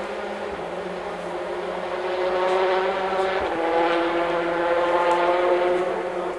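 Rally car engine running hard and unseen, its pitch rising and dropping with the gears, with a shift about three and a half seconds in. It grows louder about two seconds in and fades slightly near the end.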